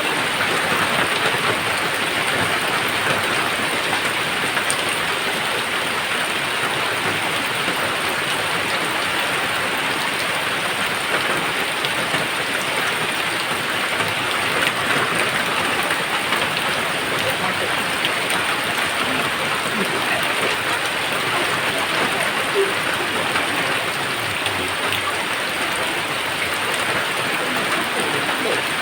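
Steady, heavy rain falling on a hard surface, an even hiss with no pauses or thunderclaps.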